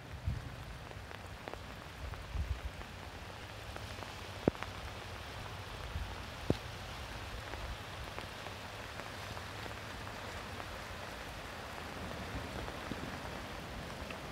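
Steady hiss of small waves washing around shoreline rocks, with a few low rumbles in the first three seconds and two sharp ticks about four and a half and six and a half seconds in.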